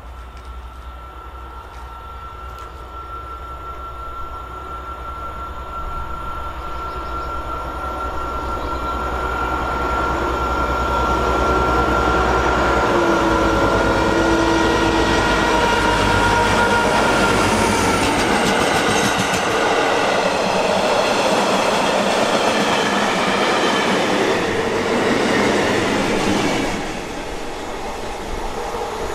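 A train approaching and going past on the railway line. It grows louder over about twelve seconds with a steady high whine, stays loud for about fifteen seconds, then drops away sharply near the end.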